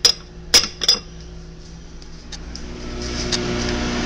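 Dishes and utensils clinking: three sharp clinks in the first second, then a low steady hum with a few faint ticks.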